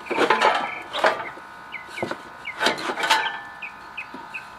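Scraping and knocking of heavy metal parts as the replacement Briggs & Stratton engine is shifted into position on the riding mower's frame. There are four rough scrapes, the first starting right away and the last near the three-second mark.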